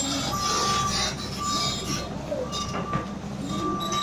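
Tracked excavator with its diesel engine running and its travel alarm beeping in steady pulses about once a second, over scraping and squealing noise with a few knocks.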